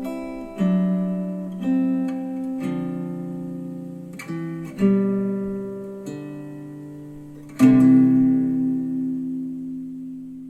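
Acoustic guitar music played back through KEF Q350 bookshelf speakers on a NAD C316BEE V2 amplifier: a series of plucked chords, each ringing out and fading, the last one struck loudest near the end and left to die away.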